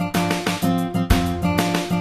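Background music with a steady beat and held pitched notes.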